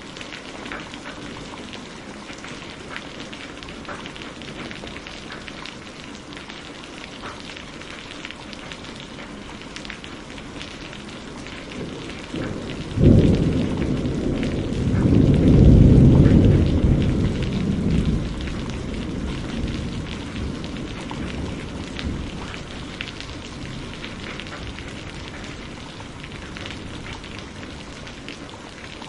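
Steady rain falling throughout. About thirteen seconds in a thunderclap cracks suddenly, then a deep rumble swells and dies away over the next five seconds or so.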